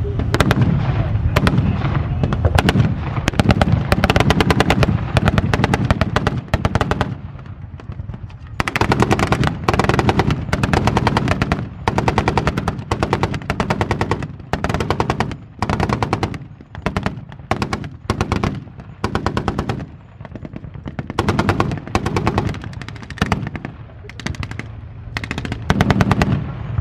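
Battle-reenactment gunfire with blanks: machine guns firing rapid bursts mixed with single rifle shots, over a low rumble of tank engines that is strongest in the first half.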